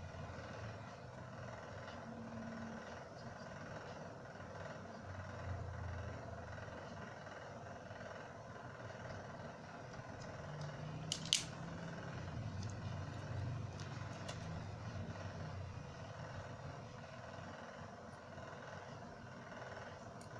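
Small clicks from handling a battery and its wire leads: one sharp click about eleven seconds in and a few faint ticks after it, over a steady low background hum.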